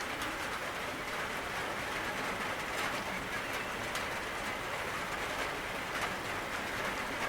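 Steady rain: a continuous hiss of falling rain with scattered individual drop ticks.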